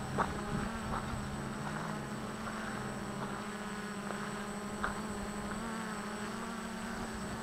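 Flying 3D X8 quadcopter's motors and propellers buzzing steadily in flight.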